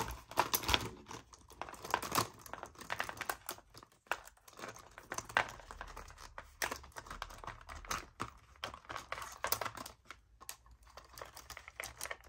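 Plastic retractable gel pens clicking and clattering against one another and against a clear plastic box as they are put back in, a run of irregular light taps with some plastic crinkle.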